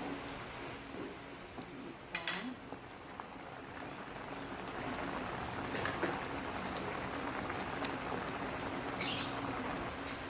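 Creamy mushroom beef sauce simmering in a pan, a steady bubbling and sizzling hiss that grows louder from about four seconds in. A few short, sharp high sounds cut through it.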